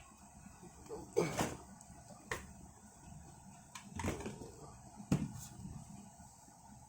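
Handling of a product box and its packaging: several sharp clicks and knocks at uneven intervals, with light handling noise between them.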